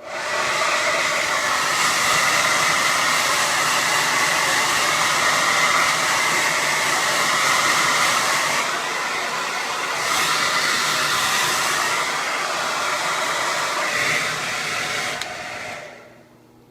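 Hand-held blow dryer switched on and running with a steady whooshing hum, dipping a little in level partway through, then switched off near the end.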